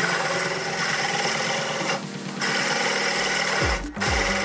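Drill press boring through a steel plate with a hole cutter: a steady loud grinding hiss of metal being cut, easing briefly about two seconds in.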